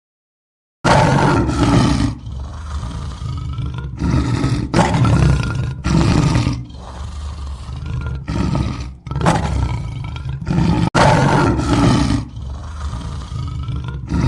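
Lion roaring: a run of roars repeating with short breaks between them, some starting and stopping abruptly.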